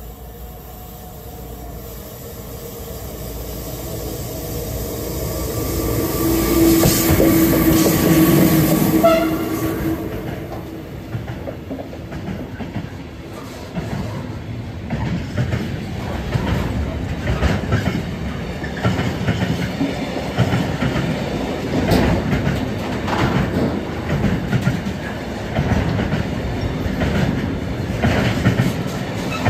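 An intermodal freight train approaches and passes close by. Its sound grows louder to a peak about eight seconds in, then the long line of wagons carrying truck trailers runs past with a regular clickety-clack of wheels striking the rail joints.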